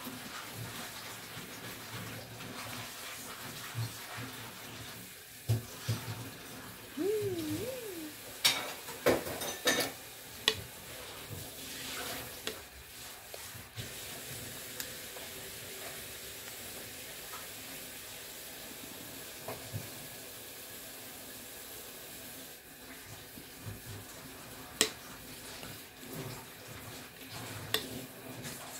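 A metal spoon scooping through watermelon hwachae in a glass bowl, clinking against the glass now and then. The clinks come in a cluster about nine to ten seconds in, with a few single ones later.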